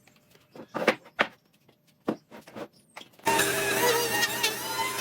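A few short, scattered knocks and rustles, then loud background music starts suddenly about three seconds in.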